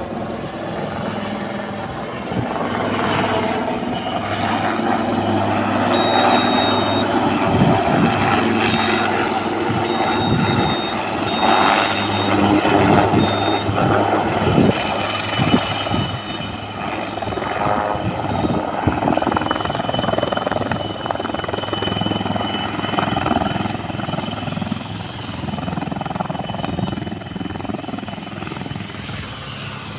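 Helicopter's rotor and turbine engine running steadily close by while it flies low and sets down, its sound easing off near the end.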